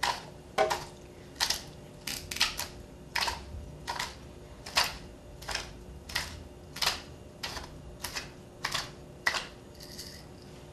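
Hand pepper mill grinding black peppercorns: a crunching click with each twist, repeating evenly about one and a half times a second.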